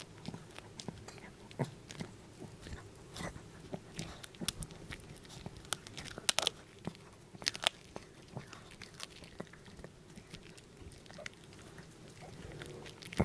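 Small dog crunching and chewing a homemade duck neck bone treat close to the microphone: irregular sharp cracks of bone, the loudest a little past the middle.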